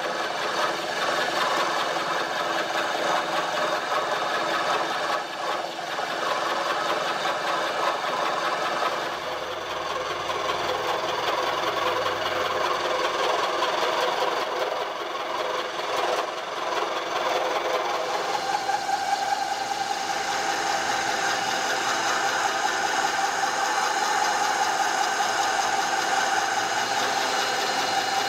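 Milling machine running in back gear at about 250 RPM as a coarse roughing end mill cuts a deep pocket in a metal plate: a steady mechanical running noise of the spindle and gearing mixed with the rattle of the cut. Its tone shifts about a third of the way in and again past halfway.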